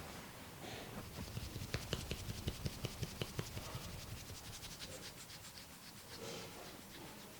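Hands working a head massage through the hair and scalp: scratching and rubbing with a run of quick sharp clicks, about four a second, that eases to softer rubbing after about four seconds.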